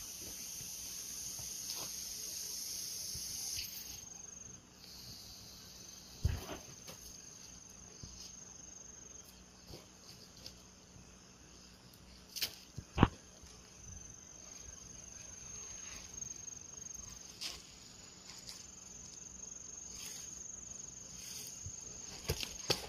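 Insects calling: a steady, high-pitched buzz, broken into long stretches, with a few sharp knocks, the loudest about 13 seconds in.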